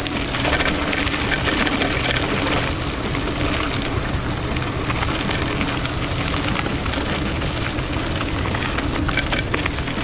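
Mountain bike tyres rolling fast over a loose gravel track, a steady crunching hiss with the bike rattling, mixed with wind rushing over the camera's microphone.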